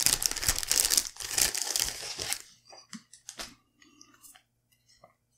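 Thin clear plastic bag being torn open and crinkled around a deck of game cards for about two seconds, then a few light clicks and rustles as the cards are handled.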